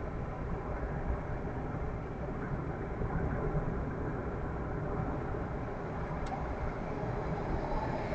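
Steady road and engine noise of a car driving at speed, heard from inside the cabin: a low, even rumble of tyres and motor, with one faint tick about six seconds in.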